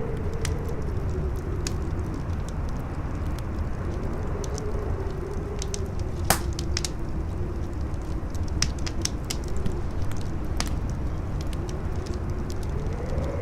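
Howling wind, its single moaning pitch slowly rising and falling over a steady low rumble, mixed with a wood fire crackling in scattered sharp clicks. One loud pop comes about six seconds in.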